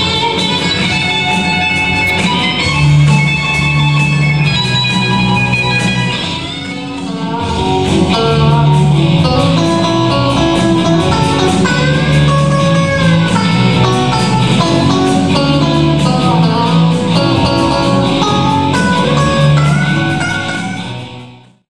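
Electric guitars playing band music. It dips briefly about six seconds in, comes back fuller and louder, and stops abruptly near the end.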